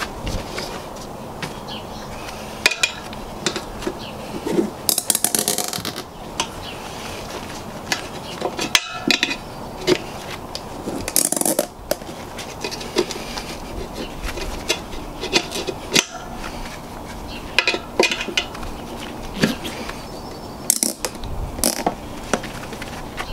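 MotoZipps tire-bead straps, oversized zip ties, being cinched tight around a motorcycle tire to squeeze the beads together: irregular spurts of ratcheting clicks and rasps, mixed with scattered clicks of hands handling the straps and tire.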